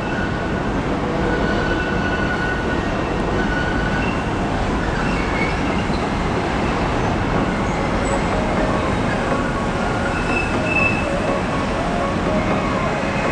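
A train running on rails with a steady rumble and faint, intermittent high-pitched wheel squeals.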